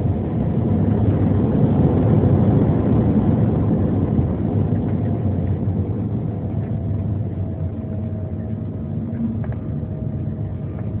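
Jet airliner cabin noise during landing, heard from inside the cabin: engine rumble and rushing air with a steady whine. It is loudest about two seconds in, then eases gradually.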